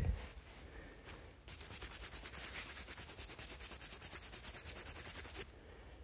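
Gloved fingers rubbing the dirt off a freshly dug kreuzer coin: quick, even scratchy strokes that start about a second and a half in and stop about a second before the end. A brief low bump of handling at the very start.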